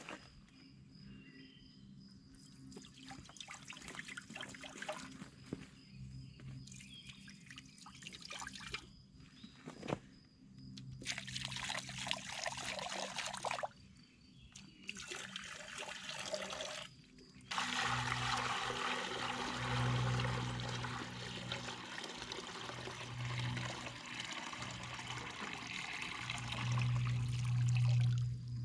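Liquid poured into a rusty steel radiator tank lying on the ground, first in short pours from a plastic jug, then a steady pour for the last ten seconds or so.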